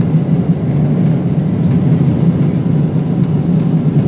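Steady cabin drone of a Boeing 777 airliner in cruise, engine and airflow noise heard from inside the cabin, with most of its weight in a low hum.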